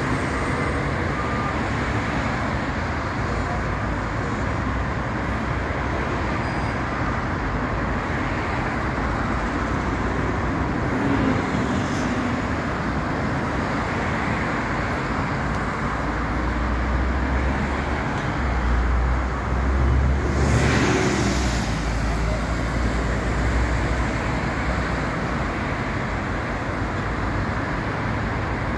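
Steady road traffic on a busy multi-lane road, with cars and buses passing. A low rumble builds about two-thirds of the way through, and a louder vehicle sweeps past briefly near its peak.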